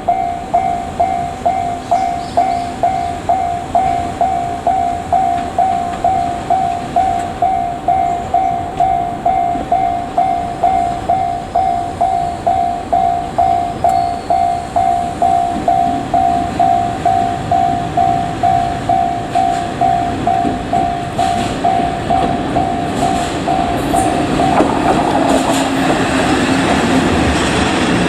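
Japanese level-crossing warning bell ringing steadily, about two and a half strikes a second. Behind it, the rumble of a JR Freight ED76 electric locomotive and its container wagons builds, and from about three-quarters of the way in the loud clatter of the wagons passing over the rails nearly covers the bell.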